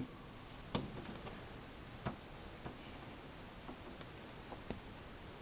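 Faint, irregular small clicks and light rustling from fingers handling a 1/18-scale plastic action figure and its mesh ghillie-suit netting, about half a dozen clicks spread through.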